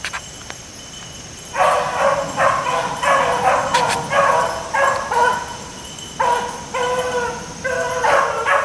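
Beagles baying, a run of repeated high-pitched hound calls that starts about a second and a half in, breaks off briefly around six seconds, then starts again.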